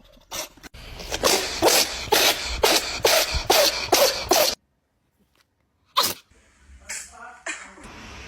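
A cat sneezing in a rapid run of about nine sharp sneezes, roughly two a second, that stops abruptly. One more sneeze comes about six seconds in, and a few weaker ones follow near the end.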